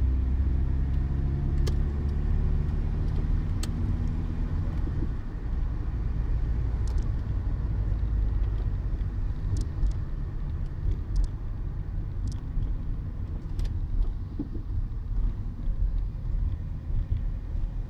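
Citroën BX 14 RE heard from inside the cabin: its 1.4-litre four-cylinder petrol engine pulls with a gently rising pitch for about five seconds, then drops out as the driver shifts gear. After that comes a steady rumble of tyres on a wet road, with occasional light clicks.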